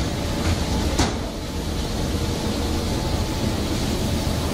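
Steady machinery noise of a fish-processing line, an even hum with faint steady tones, with one sharp clack about a second in.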